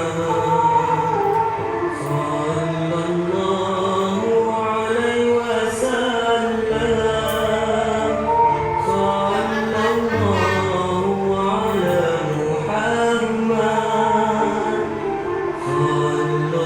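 Background music of chanted singing over held low notes that change every few seconds.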